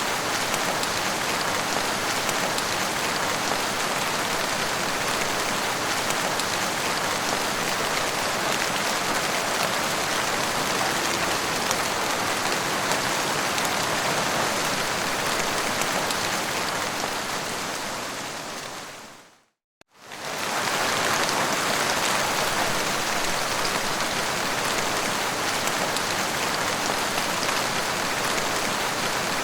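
Heavy rain falling in a steady, dense hiss. About two-thirds of the way through it fades out to a brief silence and then starts again abruptly, like a loop joined back together.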